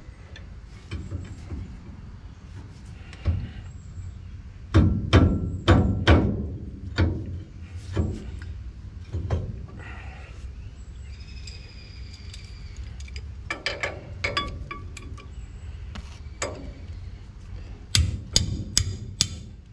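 Metal wrench knocking and clinking against a brake caliper while a banjo bolt is worked loose. Scattered sharp knocks, bunched about five seconds in and again near the end.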